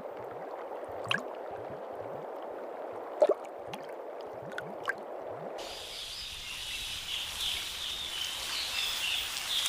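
Water trickling and gurgling, with a few sharp clicks. About five and a half seconds in, this suddenly gives way to a steady high forest ambience with faint chirps.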